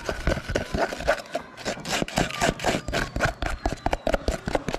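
A clear plastic utensil scraping and stirring a thick, pasty toothpaste and baking soda mixture against the sides and bottom of a plastic tub, in quick, irregular scrapes and clicks.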